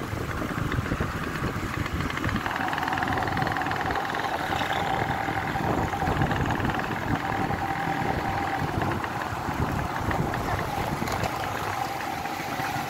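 Motorcycle engine running on the move, with wind rumbling on the microphone; a steady high whine sets in about two and a half seconds in.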